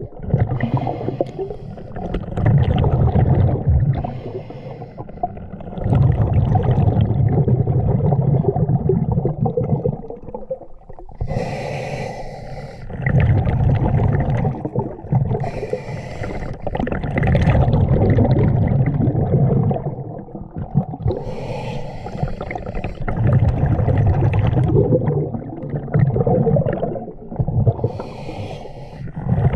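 Scuba diver breathing through a regulator underwater: a short hiss on each inhale, then a longer low burble of exhaled bubbles, repeating about every five to six seconds.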